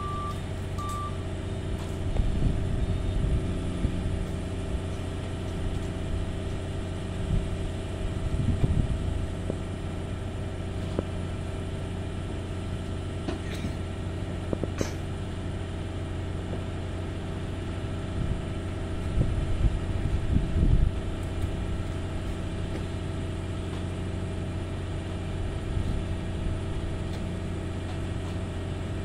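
The diesel engine of an XCMG XE470D excavator running with a steady low drone, swelling into louder low rumbles a few times. A truck's reversing beeper beeps in the first second.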